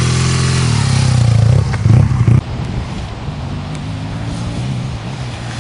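BMW R1200GS boxer-twin engine running under throttle as the bike rides over a dirt track close by. About two and a half seconds in, the sound drops sharply in level and the engine is heard further off, running steadily.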